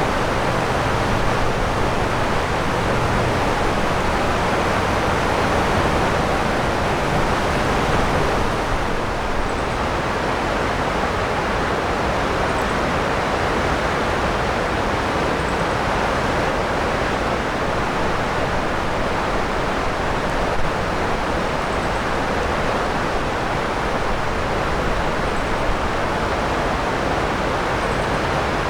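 Steady rushing of river water running through the terraced paddies, with a constant hum of expressway traffic mixed in beneath it.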